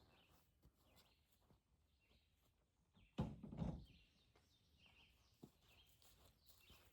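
Near silence outdoors with faint bird chirps, broken by one dull thump about three seconds in.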